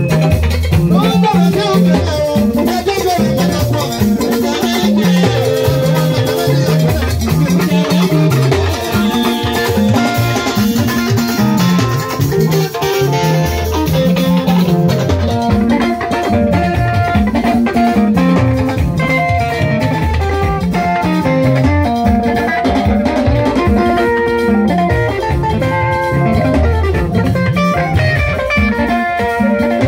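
Live band playing: electric guitar lines over a repeating bass line and a drum kit.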